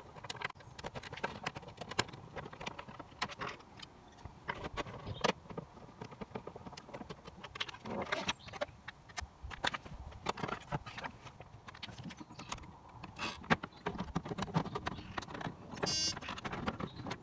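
Plastic dashboard trim being prised and wrestled off with a screwdriver: irregular clicks, knocks and small rattles of plastic panels and a metal tool, with a brief quick rattle near the end.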